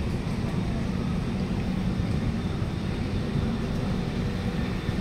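Alstom Movia R151 metro train at a station platform, a steady low hum and rumble with no distinct knocks or chimes.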